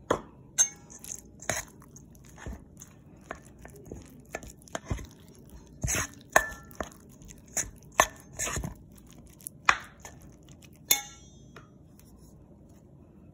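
A metal utensil knocking and clinking against a stainless steel mixing bowl as shredded cheese and mayonnaise are mixed. The knocks are irregular and sharp, a few with a brief metallic ring, and they stop about eleven seconds in.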